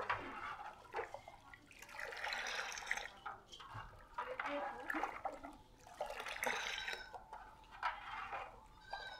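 Milk being stirred and swirled by hand in a terracotta pot, with repeated sloshing swishes of liquid about once a second.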